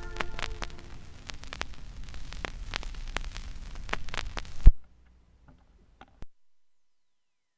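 Crackling static over a low hum, with scattered clicks, as the tail of a held musical chord dies away in the first half-second. A little past halfway a loud thump cuts the crackle off, and a couple of faint clicks follow before dead silence.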